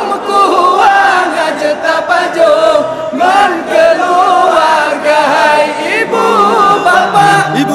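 Voices singing a melodic, chant-like sahur wake-up call, with wavering held notes and several voice lines overlapping.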